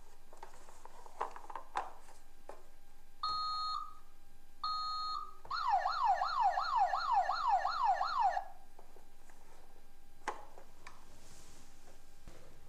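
A toy ambulance's electronic sound module: two short steady beeps, then a fast electronic siren of repeated falling sweeps, about three a second, lasting about three seconds. Light plastic clicks and knocks from handling the toy come before and after.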